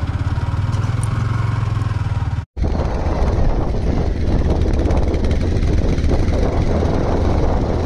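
Yamaha R15 V3's single-cylinder engine running at low speed over a rough dirt track, a steady low engine note. The sound drops out for an instant about two and a half seconds in, and the engine carries on with more rushing noise over it.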